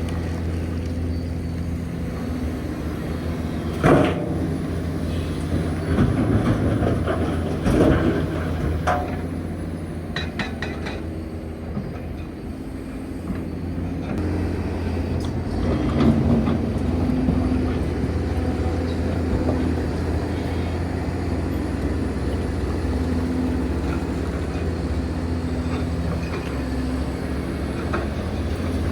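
Hitachi Zaxis 490LCH excavator's diesel engine running steadily under load, with a sharp knock about four seconds in and a run of heavy knocks and clatter a few seconds later.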